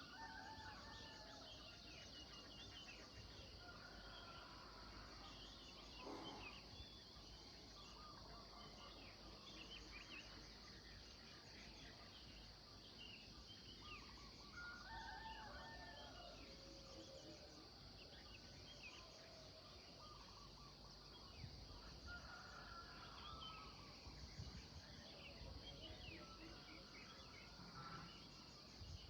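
Faint morning birdsong: assorted birds chirping and calling over a steady, high insect drone, with a few louder call phrases scattered through.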